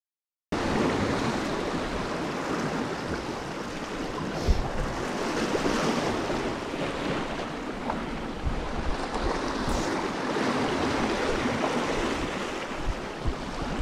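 Sea surf washing over shore rocks, with wind gusting on the microphone; the sound cuts in abruptly about half a second in.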